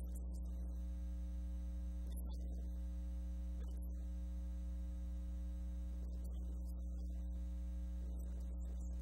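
Steady electrical mains hum with its overtones.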